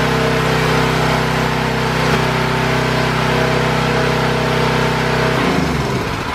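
A Generac pressure washer's 196cc gas engine running at a steady speed. About five seconds in it is switched off, and its pitch falls as it winds down to a stop.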